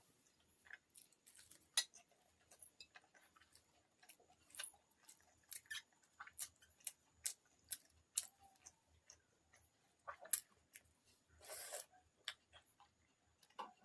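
Close-up eating sounds from a meal of pakhala (watered rice) with fried fritters and cucumber: soft chewing with a steady run of small clicks and crunches, and one longer, louder noisy crunch about eleven and a half seconds in.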